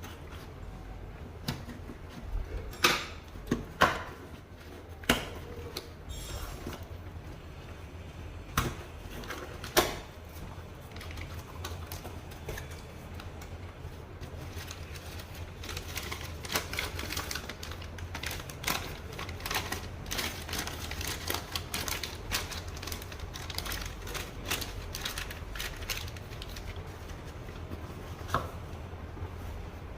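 Product packaging being handled and opened for an unboxing: a few sharp clicks and knocks in the first ten seconds, then a dense run of small clicks, taps and rustling, with one last click near the end.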